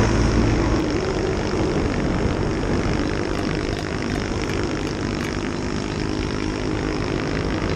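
Off-road motorcycle engine running steadily while riding, mixed with heavy wind and road noise on a helmet-mounted camera.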